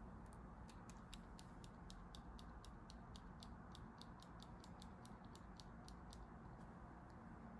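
A quick run of faint light clicks, about four a second, stopping about six seconds in, over a low steady room hum.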